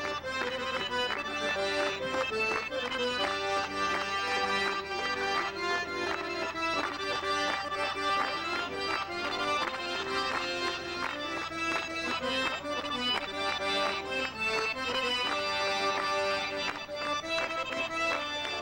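Accordion playing a traditional folk tune, sustained chords and a moving melody over a steady, even beat.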